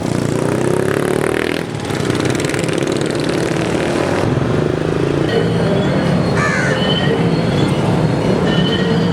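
Street traffic: vehicle engines running steadily, with a few short higher tones about six seconds in.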